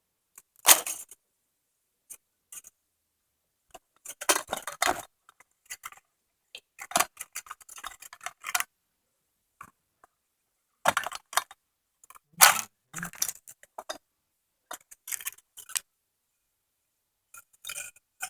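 Short metallic clinks and rattles in irregular clusters, with quiet gaps between them. The sound comes from small metal engine parts being handled while the timing chain and camshaft are fitted into a 150cc Chinese engine's cylinder head.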